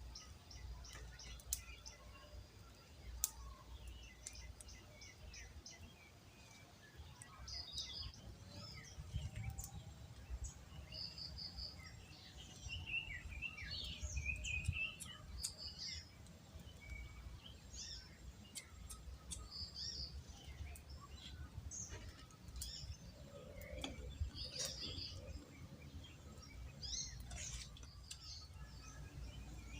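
Birds calling in the open: one bird repeats a short, high burst of quick notes every few seconds, among scattered other chirps, over a faint low rumble.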